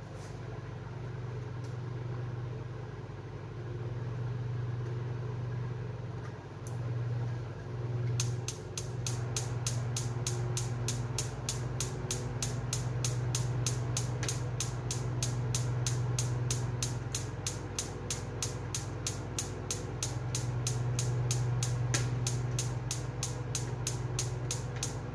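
Gas oven's spark igniter clicking evenly, several clicks a second, starting about eight seconds in, over a steady low hum; the burner has not yet lit.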